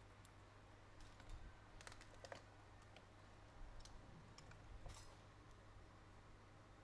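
Near silence with a few faint, scattered clicks and light taps over a low steady hum.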